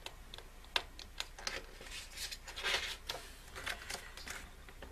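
Album photobook pages being turned and handled: paper rustling and swishing, with scattered light taps and a sharp tap a little under a second in.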